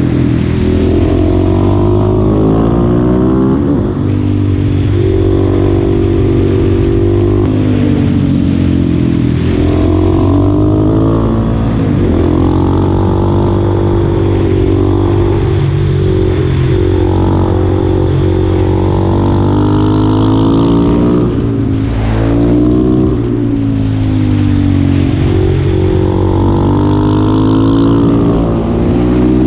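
Supermoto motorcycle engine under hard acceleration, its pitch climbing and falling again and again as the rider works the throttle and shifts gears, over a steady low hum.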